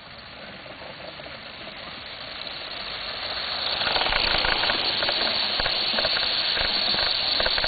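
Live steam Southern Pacific GS-4 garden-scale locomotive approaching and passing close by: a steam hiss that grows louder over the first four seconds and then holds, with a quick run of clicks through the second half.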